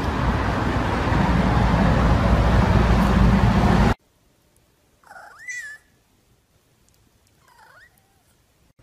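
Hip-hop music that cuts off suddenly about four seconds in. Then a tabby-and-white cat meows twice: one clear meow that rises in pitch, and a softer, shorter one near the end.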